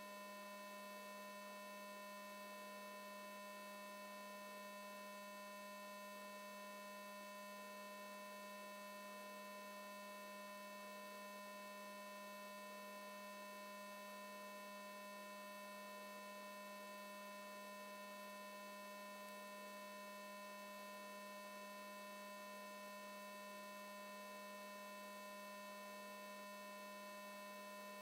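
Steady electrical hum made of several constant tones over a faint hiss, unchanging.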